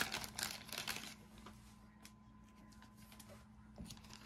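Pokémon trading cards being handled: light rustles and clicks of card stock, mostly in the first second or so, then quieter with a few soft ticks.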